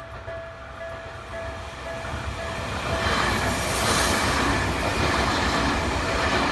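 Japanese level-crossing warning bell ringing in a steady repeating pattern while a Tokyu Ikegami Line train passes through the crossing. The train's rumble and wheel noise build from about two seconds in and are loudest midway.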